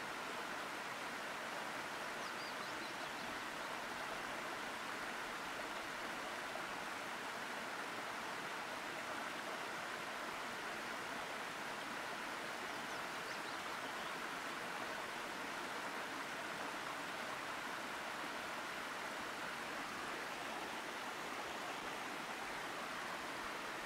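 Waterfalls pouring into a pool: a steady, even rush of falling water, with a few faint high chirps now and then.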